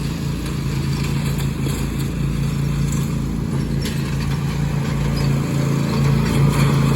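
Riding lawn mower engine running steadily, growing a little louder toward the end.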